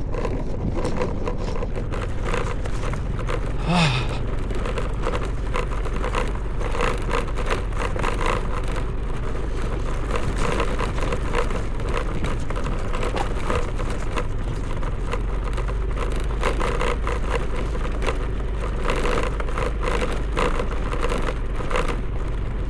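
A motorbike's engine running steadily as it rides over a rocky off-road track, with frequent rattles and knocks from the jolting. A brief sliding tone comes about four seconds in.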